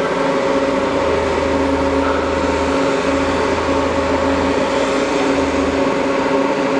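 Citizen M20-III Swiss-type CNC lathe running with its Coolblaster high-pressure coolant system on: a steady mechanical hum over a hiss of pressurised coolant. A deeper drone cuts in and out several times.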